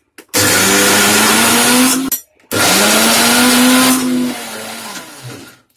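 Blue Leaf mixer grinder running in two short pulses, grinding soaked moong dal with green chillies and ginger in its steel jar with no water added. The motor speeds up at the start of each pulse, and after the second one, about four seconds in, it winds down and fades.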